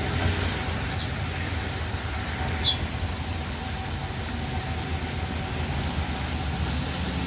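Isuzu Giga truck's diesel engine running steadily as the truck stands on a steep wet climb where its rear wheels have been slipping, with passing road traffic. Two short high chirps cut through about one and two and a half seconds in.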